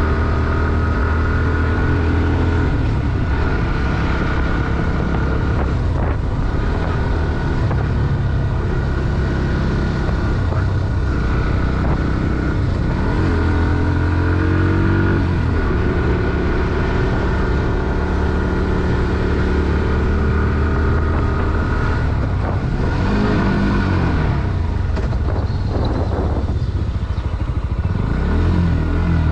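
Bajaj Pulsar NS160's single-cylinder four-stroke engine running under way, its revs climbing and dropping back several times as it pulls and shifts gear.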